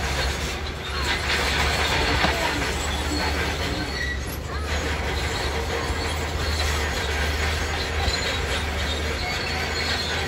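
Crawler bulldozer running steadily at a distance, its diesel engine humming low with the steel tracks squealing and clanking as it works across a pile of stones.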